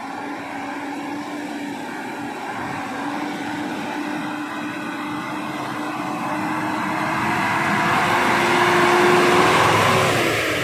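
KAMAZ dump trucks' diesel engines running under load through deep mud. The engine note rises slowly and grows louder as a truck approaches, peaking as it passes close by about nine seconds in, then falling away.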